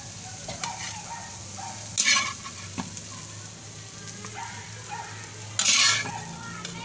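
Eggs and malunggay leaves frying in oil in a frying pan, sizzling steadily while a spatula scrapes and stirs across the pan. There are two louder scrapes, one about two seconds in and another about a second before the end.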